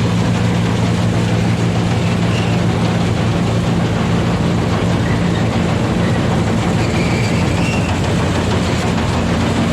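Sampo plot combine harvester running steadily close by, its engine humming under the constant rattle and rush of the threshing mechanism.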